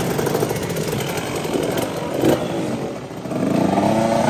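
125 cc two-stroke motocross bike engine running, then revved up and down in the second half with rising and falling pitch.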